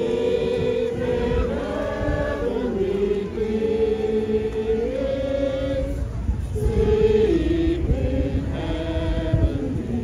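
A group of voices singing a Christmas carol, slow held notes stepping up and down, with a short break a little past the middle.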